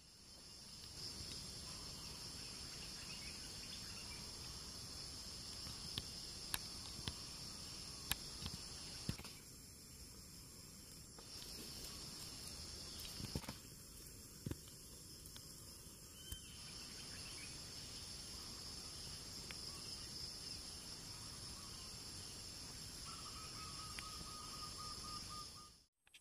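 Steady, high-pitched insect chorus in two layered bands of buzzing, which drops out twice for a couple of seconds. A few faint clicks come in the first third, and a short, lower trill comes near the end.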